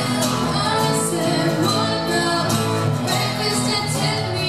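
Live acoustic band: two acoustic guitars strumming with a woman singing lead through a microphone and PA.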